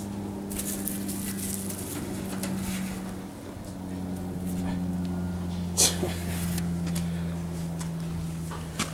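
A steady low mechanical hum, dipping slightly in pitch about three and a half seconds in, with one sharp click near six seconds in.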